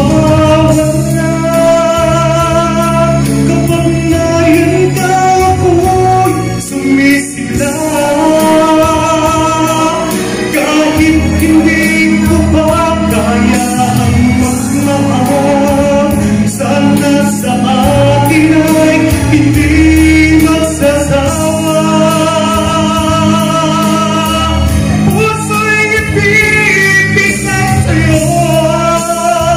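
A man singing through a handheld microphone over backing music, holding many notes for a second or two.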